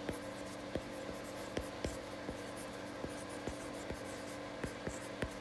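Stylus tapping and sliding on a tablet's glass screen while handwriting, a series of light, irregular clicks a few times a second.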